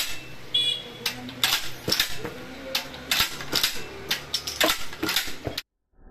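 A dozen or so sharp metallic clicks and clacks, irregularly spaced, from working the mechanism of a Stallion Pro PX-701 AS 12-bore pump-action shotgun loaded with dummy cartridges. The sound cuts off abruptly shortly before the end.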